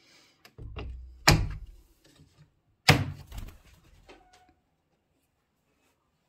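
Two loud knocks about a second and a half apart, each with a low rumble after it.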